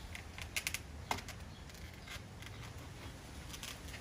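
Puppies pawing at and nosing a plastic tray mat, making scattered light clicks and taps. There is a quick cluster in the first second, a single knock just after, and a few more near the end.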